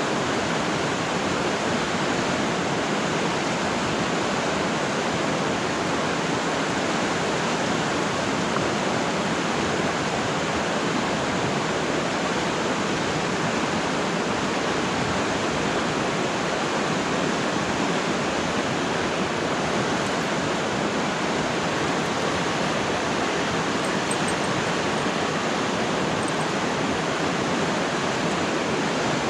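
River water rushing past in a steady, unbroken wash of noise.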